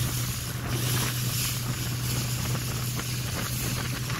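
Boston Whaler motorboat underway: the engine's steady low drone, mixed with wind on the microphone and water rushing past the hull.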